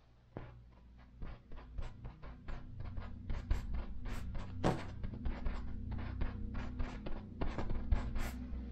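Quick taps and scrapes of a painting tool on canvas, several a second and growing busier, over a low steady drone.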